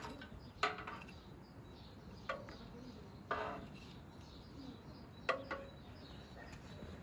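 Metal fire tongs clinking against a steel wood stove while hot coals are picked from its firebox: four sharp metallic knocks a second or so apart, one followed by a short scrape.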